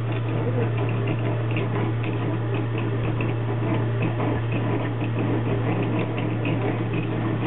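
Belt-driven net-winding spool running, winding in the line that pulls the fishing net back under the ice: a steady low motor hum with fast, irregular clicking and ticking over it.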